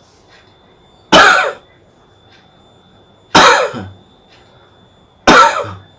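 A man gives three deliberate, forced coughs, each short and sharp, about two seconds apart. The coughs are meant to work phlegm loose and up out of the throat.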